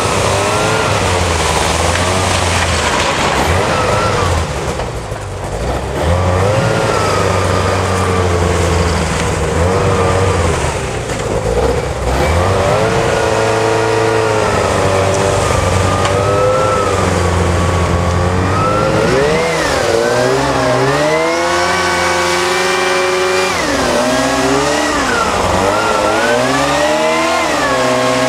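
Rescue hovercraft's engine and ducted propeller fan running loud and continuously. The engine note rises and falls as it is throttled up and down, more often in the second half.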